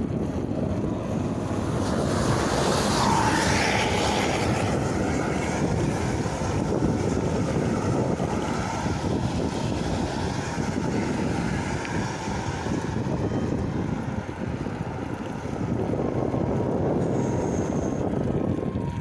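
Wind rushing over the microphone with road and vehicle noise during a downhill ride, and a brief rising whine about three seconds in.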